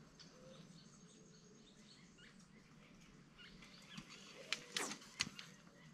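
Faint outdoor ambience with scattered short bird chirps, and a few louder short sharp sounds about four and a half to five seconds in.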